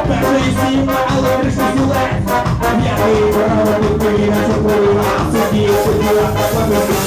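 Live ska band playing an instrumental passage: trumpet and trombone carry the tune over drums, bass and guitar with a steady, quick beat. About three seconds in, the horns move from short phrases to longer held notes.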